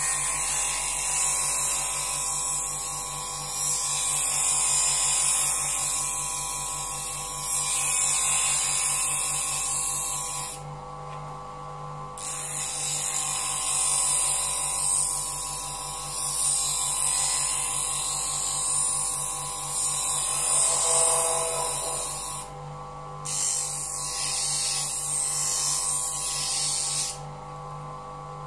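Skil bench grinder running with a steady hum while a scissor blade is held against its spinning wheel, giving a hissing grind. The grinding comes in three long passes, breaking off briefly each time the blade is lifted from the wheel.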